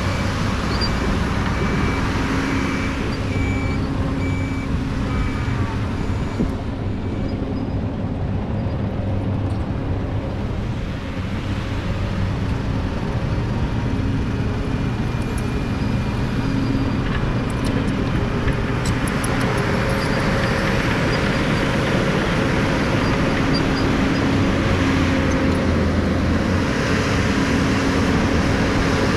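Diesel engines of a tipper truck and a Caterpillar D6K XL crawler dozer running steadily. A reversing alarm beeps for the first several seconds. Later the noise rises while the truck tips its bed to dump soil.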